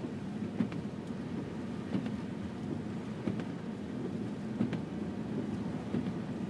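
Steady road and engine rumble inside a moving car's cabin on a snow-covered road, with a faint knock repeating about every second and a half.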